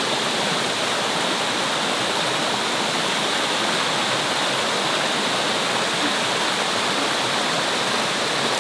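Mountain stream rushing over rock slabs and small cascades: a steady, even rush of water.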